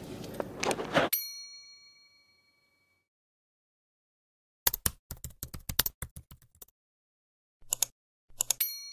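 End-screen sound effects: a bright chime ding about a second in, ringing out for about two seconds, then a rapid run of clicks like keyboard typing, two short clusters of mouse-style clicks, and the same ding again at the end. Before the first ding, in-car handling noise cuts off abruptly.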